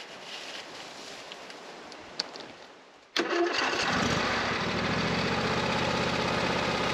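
Faint rustling of dry nest material pulled by hand from the engine's intake screen. About three seconds in, the Husqvarna GTH52 XLS garden tractor's 24 hp Briggs & Stratton V-twin starts suddenly and runs steadily.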